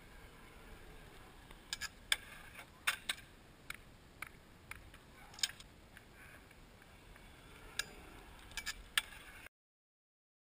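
Faint clatter of a stunt scooter on concrete: scattered sharp clicks and knocks over a low hiss. It cuts to dead silence about a second before the end.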